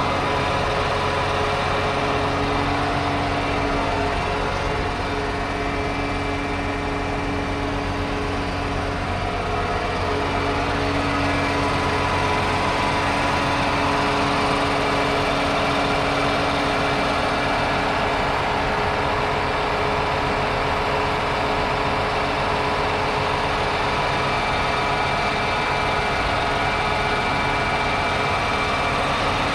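John Deere 8RX410 tractor's 9.0-litre six-cylinder diesel running steadily while pulling a folding cultivator, a continuous drone with a few held whining tones above it.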